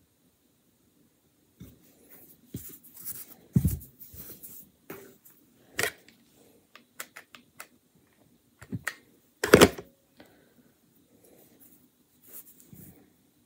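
Irregular taps, clicks and knocks of small wooden bead feet and a wooden board being handled and pressed down on a table during hot-glue crafting, with two louder knocks about three and a half and nine and a half seconds in.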